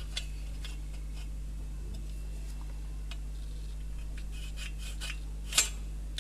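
Pencil and metal combination square worked against an aluminium sheet while a line is marked: a few faint light taps and one sharper click about five and a half seconds in, over a steady low electrical hum.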